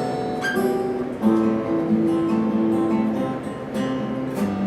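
A musician playing a short phrase on an instrument: a run of changing notes over sustained chords, with no speech.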